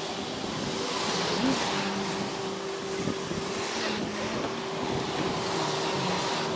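Road traffic: cars passing, swelling and fading twice over a steady engine hum.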